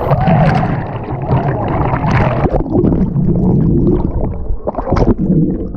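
A breaking artificial wave on a water-park rapids river crashing over a rider in a tube, rushing and splashing water. After about two and a half seconds the sound goes muffled as it is heard from under the water: rumbling and gurgling turbulence, with a short sharp splash near the end.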